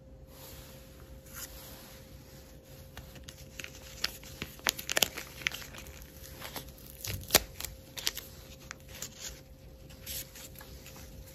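A foil wet-wipe sachet being crinkled and torn open by hand, with sharp crackles about five and seven seconds in. Softer rustling follows as the wipe is pulled out and rubbed over a phone screen.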